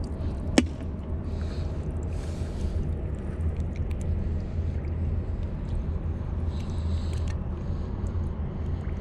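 The plastic lid of a minnow bait bucket snaps shut with one sharp click about half a second in, over a steady low rumble.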